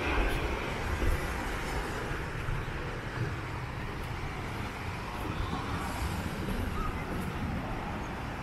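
Steady wind buffeting the microphone over surf washing onto a sand beach, a low rumbling noise with no clear tone.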